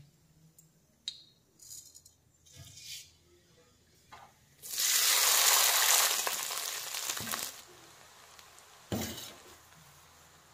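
Hot oil in a kadai sizzling loudly for about three seconds, starting about halfway through, as boiled rice is tipped into the pan, then dying away. A few light clinks come before it, and a single knock near the end.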